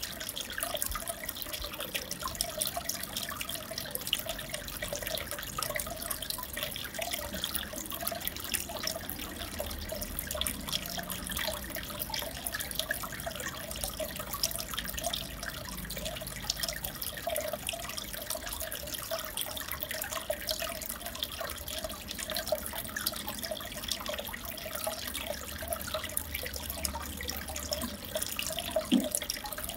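Aquarium water trickling and bubbling steadily, with a brief low knock near the end.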